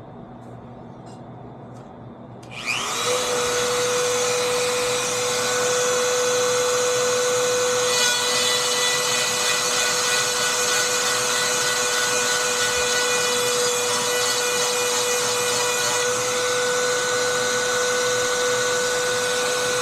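A Dremel rotary tool switched on about three seconds in, spinning up quickly to a steady high-pitched whine, its grinding stone sharpening the cutters of a chainsaw chain.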